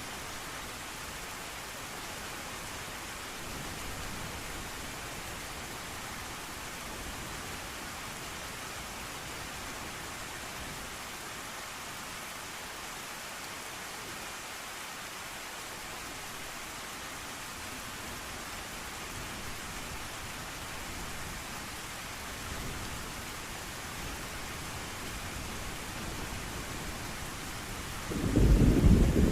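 Steady heavy rain with faint low rumbles of thunder now and then, and a loud close thunderclap breaking in near the end.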